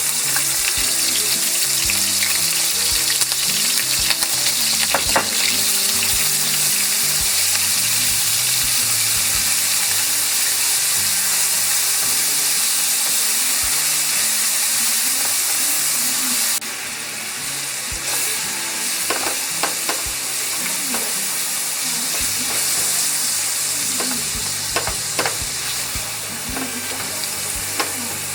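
Food sizzling in a hot frying pan while it is stirred, with clicks and scrapes of a utensil against the pan. The sizzle quietens a step about two-thirds of the way through.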